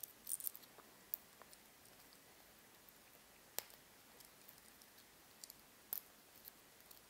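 Faint, scattered clicks of a bicolour metal watch bracelet's links knocking together as it is handled, with a small run of clicks at the start, a sharper single click about three and a half seconds in and another pair near six seconds.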